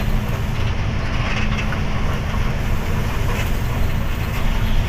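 Sand-laden lorry driving along at speed, its diesel engine and road noise forming a steady, loud, low rumble.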